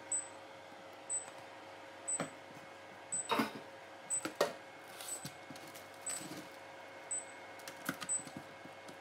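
Kitchen handling sounds: a silicone spatula scraping and knocking as thick cream is scraped from a glass bowl onto a baking tray, with a couple of sharp knocks around the middle, then the crinkle of cling film being pulled over the cream near the end. A steady hum and a faint tick about once a second run underneath.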